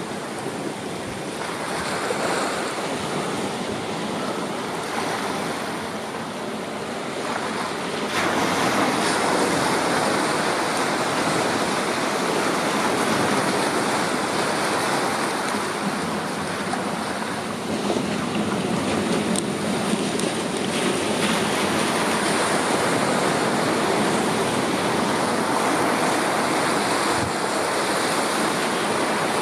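Small sea waves breaking and washing over a rocky shore, a steady surf wash that grows louder about eight seconds in.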